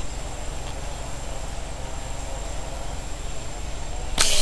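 Low, steady background noise while the fishing slingshot is held drawn, then about four seconds in a single short, sharp snap as the slingshot is released and fires its fishing arrow.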